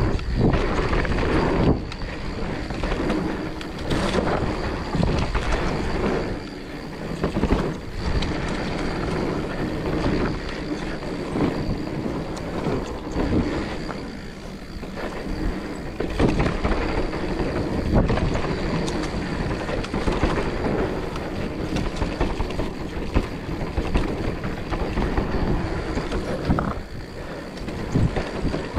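Mountain bike ridden fast down a dirt trail: tyre noise on the packed dirt with frequent knocks and rattles from the bike over bumps, easing off briefly a couple of times.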